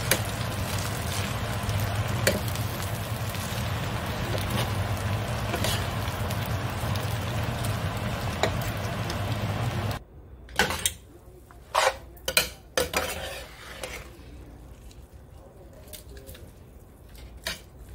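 Glass noodles and vegetables stir-frying in a copper-coloured pan, with a steady sizzle for about the first ten seconds that cuts off suddenly. After that, a metal utensil scrapes and clinks against the pan a number of times.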